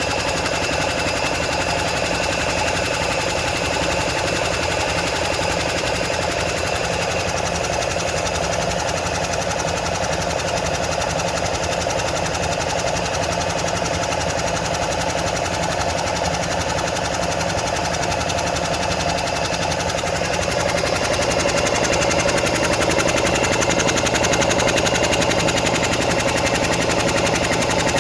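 Craftsman 12-gallon air compressor's motor and piston pump running steadily with a rapid, even chatter, refilling the tank after it has bled down through a leaking fitting. It gets a little louder about three quarters of the way through.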